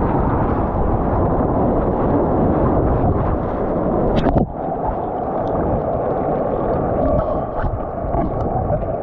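Loud wind buffeting on the microphone while riding: a steady rumbling rush that briefly drops about four and a half seconds in.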